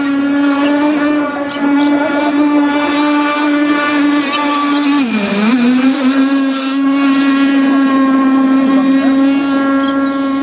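O.S. Max 50 SX Hyper Ring two-stroke glow engine in a Seaducer mono RC boat running flat out with a steady high buzz. Its pitch dips sharply about five seconds in, as the boat skims close by, then climbs straight back.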